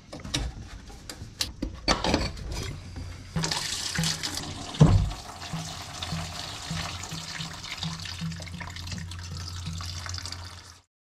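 Engine coolant streaming out of a disconnected coolant line of a Porsche 997 Turbo and splashing into a plastic parts bin, with a few knocks from the bin being handled at first and one loud thump about five seconds in. The pour stops abruptly near the end.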